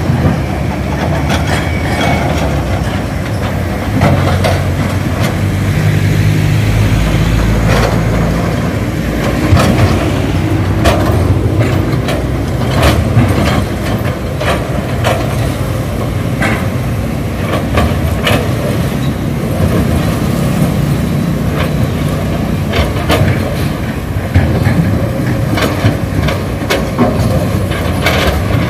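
Diesel engines of hydraulic excavators and a dump truck running under load, with repeated sharp knocks and clanks scattered through, from rocks and the steel bucket striking.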